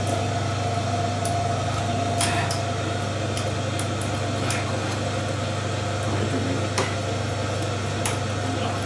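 Steady hum of an electric motor in the smithy, with a few light metallic clinks, spaced a couple of seconds apart, as the chain holding the steel bar is handled at the anvil.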